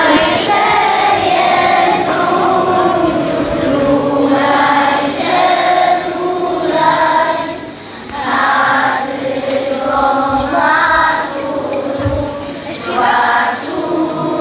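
A group of young voices singing a slow goodnight song together in Polish, in held sung phrases with a short break about halfway through.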